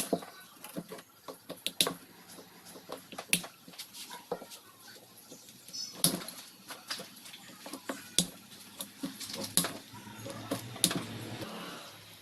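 Irregular sharp clicks and taps, a few of them louder knocks, over a faint low steady hum that stops near the end.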